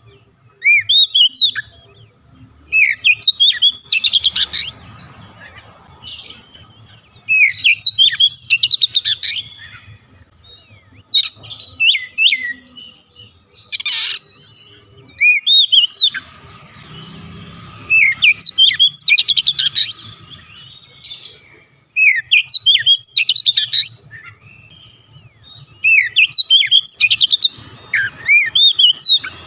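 Male Oriental magpie-robin singing: loud phrases of quick sweeping whistles and chirps, each a second or two long, with short pauses between them.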